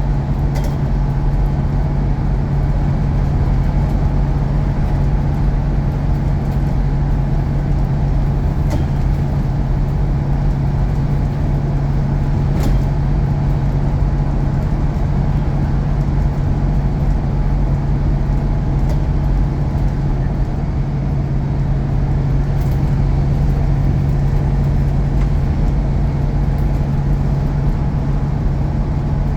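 Bus engine running at a steady, even pitch while under way, with a faint steady whine above the engine note.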